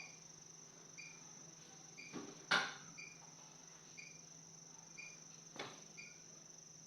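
Insects chirping steadily, a short chirp about once a second over a continuous high whine. A sharp knock sounds about two and a half seconds in, with a softer one later.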